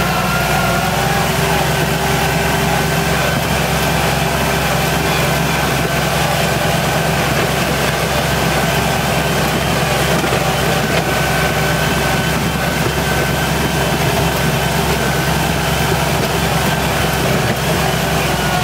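Tractor engine running steadily while plowing snow, heard from the driver's seat.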